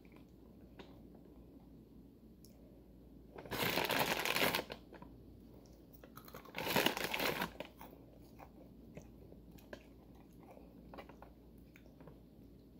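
Two short bursts of a clear plastic bag of small cookies crinkling as it is handled, each about a second long, one about three seconds in and another about three seconds later. Faint small taps and clicks of handling come between them.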